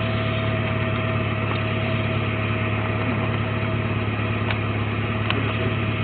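A vehicle engine idling steadily: a low, even hum with a thin steady tone above it, and a few faint ticks.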